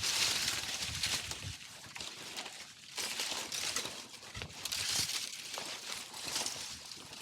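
Leafy tree limbs rustling and crackling in irregular swells as they are handled; the chainsaw is not running.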